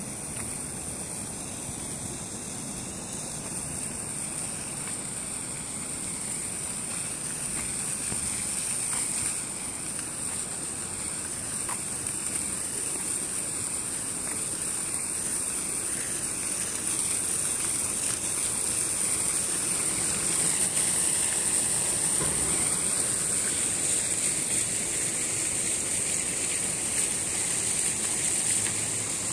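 Steady rush of splashing fountain water that grows louder toward the end, with a steady high-pitched whine running over it.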